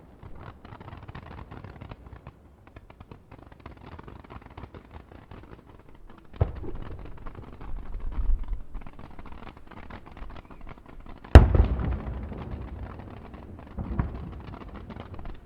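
Fireworks display: a steady crackle of small bursts, with deep booming shell bursts about six seconds in. A single sharp bang, the loudest of all, comes about eleven seconds in, and another boom near the end.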